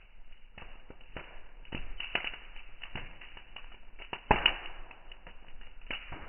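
Large wood bonfire crackling, with irregular sharp pops over a low hiss and one louder crack about four seconds in.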